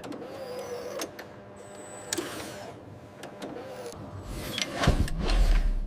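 Strap tension-testing machine running: a steady mechanical hum with a couple of sharp clicks, and a deep rumble swelling up in the last second.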